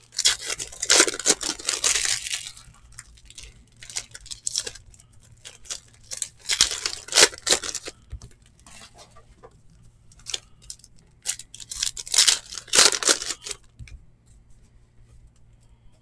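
Foil trading-card pack wrappers being torn open and crinkled, in three loud spells: at the start, about halfway through, and again a few seconds later. Between them are light clicks and rustles of cards being handled and stacked.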